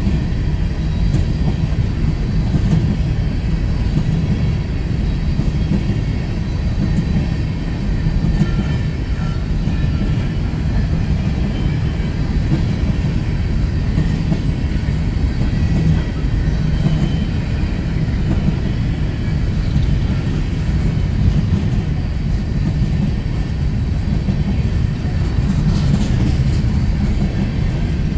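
Empty BNSF coal train rolling past: a steady, loud rumble and clatter of freight cars on the rails. Faint high tones come and go.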